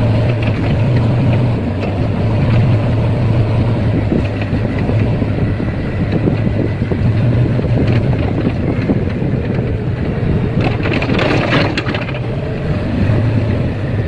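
Backhoe loader's diesel engine running steadily with a low drone as the machine travels. A burst of rattling, clattering noise comes in briefly about eleven seconds in.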